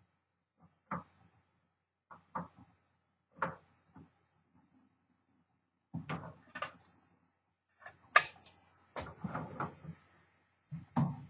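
1963 Smith Corona Sterling manual typewriter being worked: sharp clacks and knocks at uneven spacing, a few at first and then a quicker run of strokes near the end.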